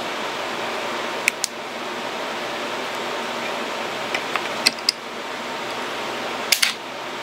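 Small metal LED flashlights being handled and pressed into their mounts on a freeskate, giving a few pairs of sharp clicks and knocks over a steady hiss.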